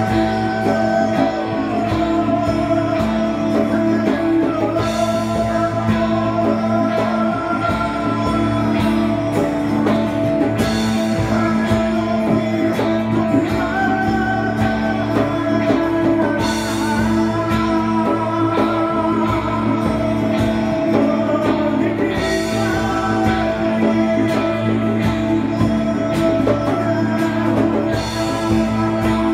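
Live band playing a slow song: acoustic and electric guitars holding sustained notes under a singing voice.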